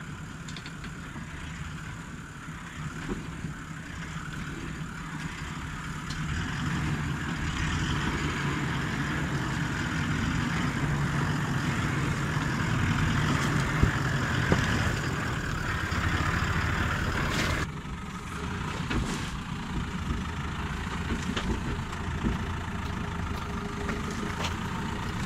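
Engines of four-wheel-drive utes, a Toyota LandCruiser 79 Series and then a Nissan Navara, running at low revs as they crawl over sandstone rocks. The sound grows louder as the LandCruiser nears, with a few sharp knocks partway through.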